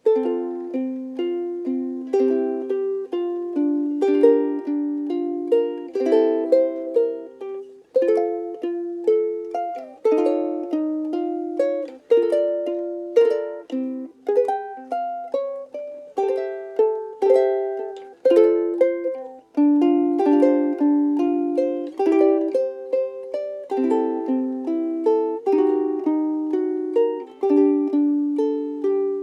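Frayns FRUK-3MS soprano ukulele, with a solid Honduran mahogany body, played solo. A continuous tune of plucked notes and chords rings out and decays note by note.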